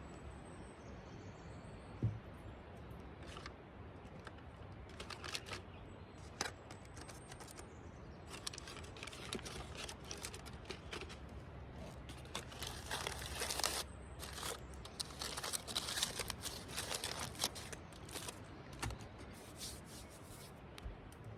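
Steady low rumble of ocean surf, with a single thump about two seconds in and a run of crackling and crinkling through the middle.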